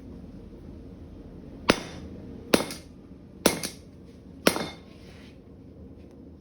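Four hammer blows on metal being forged, about a second apart, each a sharp ringing strike, the last two followed by a small rebound tap. A steady low rumble runs underneath.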